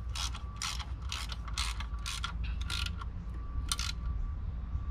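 Hand ratchet wrench clicking through about a dozen short strokes in quick succession, two or three a second, easing off near the end, as the water pump bolts are drawn down evenly.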